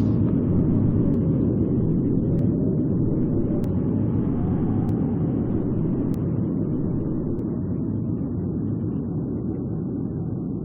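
Rumble of a big explosion dying away: a deep, steady roll after the blast that fades slowly.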